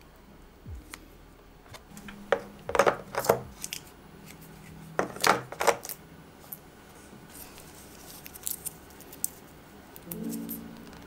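Small black plastic gouache paint cups clicking and clacking against each other and against a white plastic palette tray as they are handled and set into its compartments, in two clusters of sharp knocks, followed by a few light ticks of fingers on a cup's lid.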